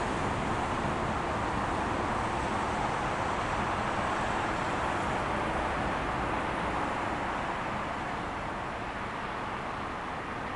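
Steady road traffic noise, a continuous even rush of passing vehicles, easing off a little near the end.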